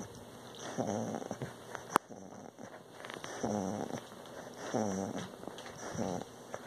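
Pit bull-type dog groaning in low pitched moans, one with each breath about every second and a half, while it is petted. A single sharp click about two seconds in.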